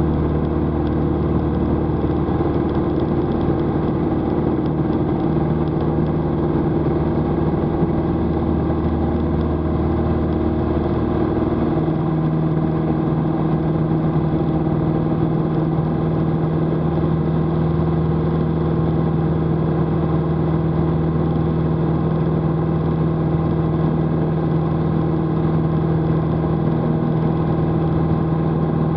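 Light single-engine airplane's piston engine and propeller at takeoff power, a loud steady drone heard from inside the cockpit during the takeoff roll and climb-out. The tone of the drone changes about twelve seconds in.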